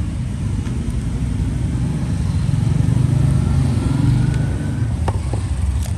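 Low rumble of passing road traffic, swelling in the middle as a motor vehicle goes by with a faint rising whine. Two short sharp clicks come near the end.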